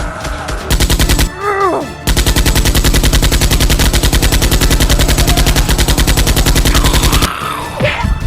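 Rapid machine-gun fire, about fourteen shots a second: a short burst, then a long steady burst of about five seconds. A short cry breaks in between the bursts and again near the end.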